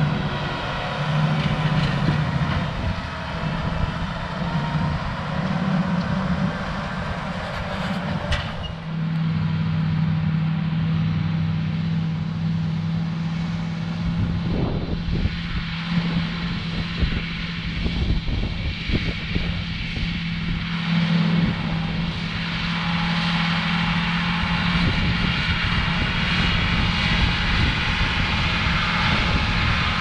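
John Deere 8245R tractor engine running steadily under load while pulling a Case IH chisel plow, a constant drone with one strong low hum. The sound changes abruptly about eight seconds in.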